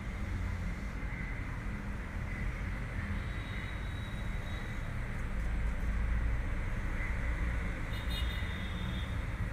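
A steady low rumble with a thin hiss above it, without distinct knocks or clicks.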